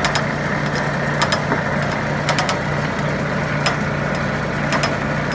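Kubota engine of a tracked carrier running steadily while the chain-and-slat conveyor floor of its bed is driven at its fastest speed to unload, with scattered sharp metal clicks and clanks from the moving conveyor chain.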